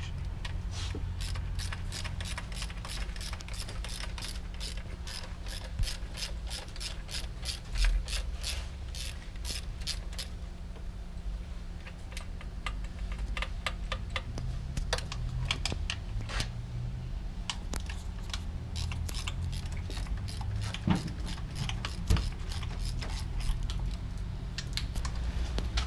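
Hand ratchet clicking as the intake manifold bolts are loosened. A fast, continuous run of clicks lasts about the first ten seconds, then shorter bursts follow with pauses between them.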